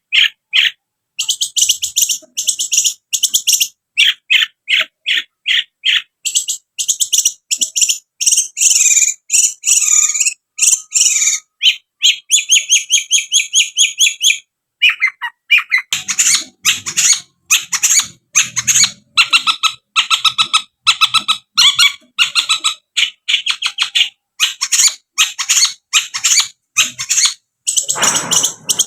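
Long-tailed shrike (cendet) singing loudly: a long stream of rapid, high, chattering notes and trills repeated several times a second, with only brief gaps.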